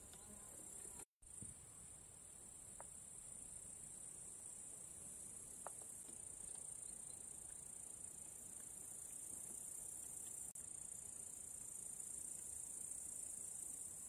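Faint, steady high-pitched chirring of insects, cutting out for an instant about a second in.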